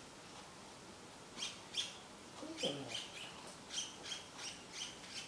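Birds chirping: a string of short, high chirps starting about a second and a half in, some in quick pairs. There is also one brief low falling sound about halfway through.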